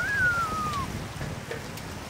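Water splashing and trickling as live catfish are tipped from a wicker basket into a metal basin of water. A single whistled note falls in pitch during the first second.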